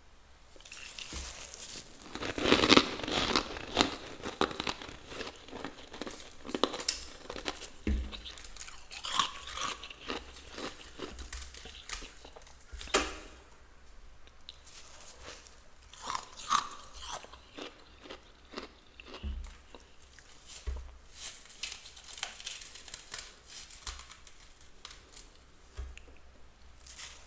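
Freezer frost crunching and crackling in irregular bursts around a freezer basket, with a dense, loud stretch about two to four seconds in.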